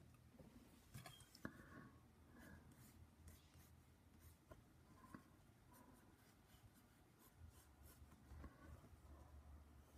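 Mechanical pencil drawing on paper: faint, short scratching strokes in quick succession.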